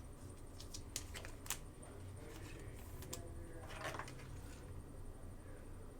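Faint handling of trading cards: a few light clicks about a second in and a short scraping rustle near four seconds, over a low steady room hum.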